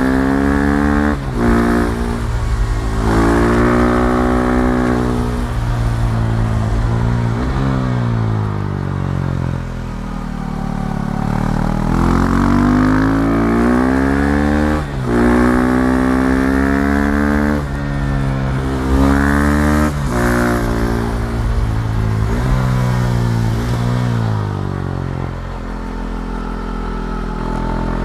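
KTM 390 Duke's single-cylinder engine pulling hard while riding: its pitch climbs and then drops sharply several times as it shifts gears, with stretches where it falls away as the bike slows.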